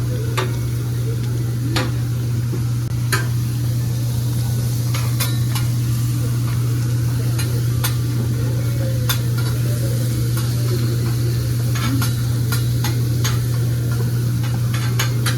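Hibachi griddle sizzling under a steady low hum, with sharp metal clicks and taps of utensils scattered throughout.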